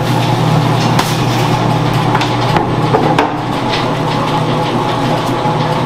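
Steady low hum of bakery machinery running, with a few light knocks as the plastic dough tub is handled and the dough is turned out onto the table.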